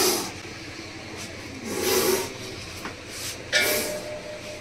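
Monocled cobra hissing: three short, forceful hisses about two seconds apart, the defensive hiss of a cornered cobra.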